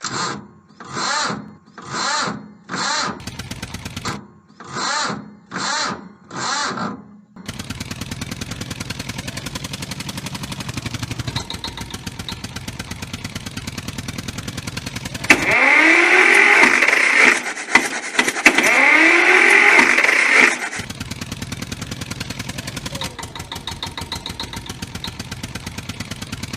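Tractor engine sound: about a second apart for the first seven seconds, then running steadily with a fast chug, revving loud with rising and falling pitch for about five seconds in the middle.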